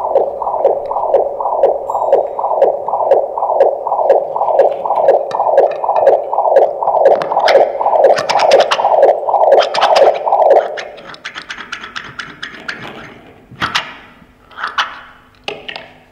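Amplified sewing machines played as instruments through electronics: a looping rhythmic pulse, about three beats a second, that stops about two-thirds of the way through, followed by scattered scrapes and thuds.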